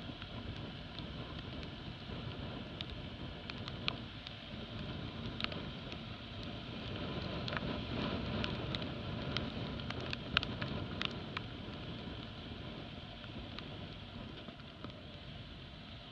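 Motorcycle riding at low speed on a wet road: a steady low engine drone under wind and tyre hiss, a little louder through the middle, with scattered sharp ticks.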